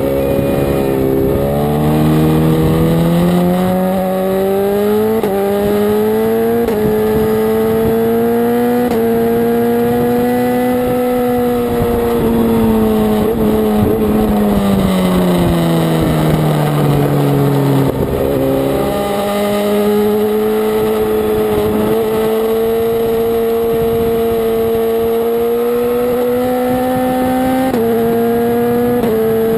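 Sport motorcycle engine at high revs on track, its pitch climbing and stepping at gear changes. It falls away for several seconds in the middle as the bike slows, then picks up again and holds nearly steady under throttle.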